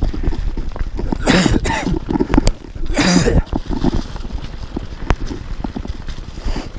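A mountain biker coughing hard twice, about a second and a half apart, his lungs still not right after COVID. Under the coughs is the steady rumble and rattle of the bike riding down a dirt trail.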